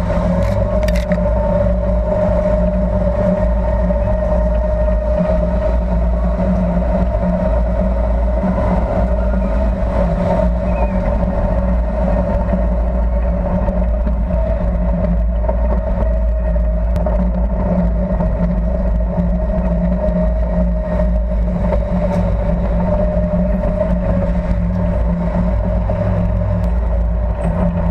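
A tank's engine running steadily as the tank drives through the streets: a loud, even drone with a constant higher-pitched hum over the low rumble.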